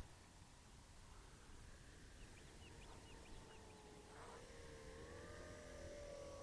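Near silence in the open air. A quick run of faint short chirps comes about two and a half seconds in, and a faint humming tone rises gently in pitch from about four seconds in.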